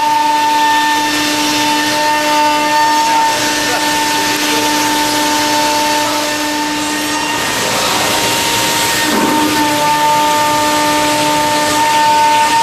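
Komo CNC router milling aluminum plate: a steady high spindle whine with a constant cutting hiss. A lower tone drops out about seven seconds in, and the pitch dips briefly about two seconds later.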